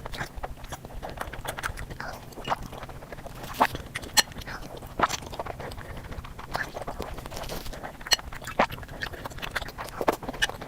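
Close-miked chewing and biting of sweets: irregular mouth clicks and smacks, with a few sharper bites standing out.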